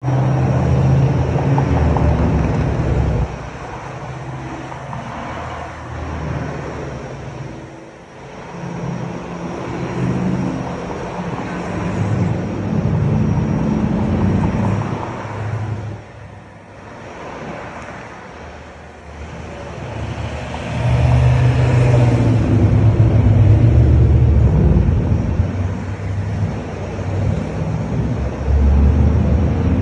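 Engines of classic cars and pickup trucks driving past one after another. The engine note swells as each vehicle comes by and fades as it goes, and is loudest about twenty to twenty-four seconds in.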